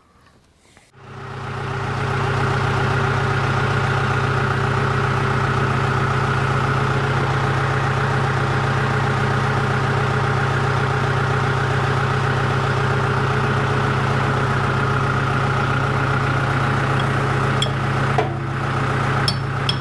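John Deere 210LE's diesel engine starting about a second in and then running steadily at idle. A few sharp metallic clinks come near the end.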